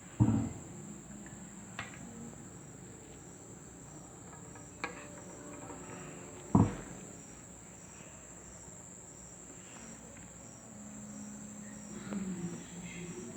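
Steady high-pitched insect trill throughout, with a few knocks; the loudest knock comes about six and a half seconds in.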